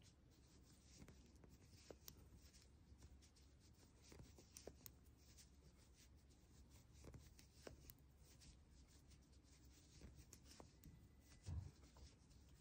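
Near silence with faint scattered clicks and rustles of yarn and a needle being worked by hand, and one soft thump about eleven and a half seconds in.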